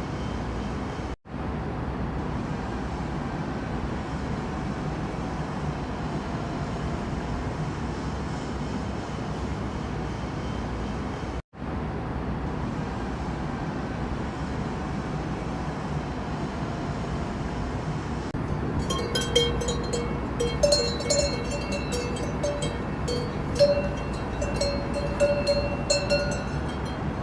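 A steady rumbling background noise that cuts out briefly twice. From about two-thirds of the way in, cowbells clank and ring irregularly as cows move.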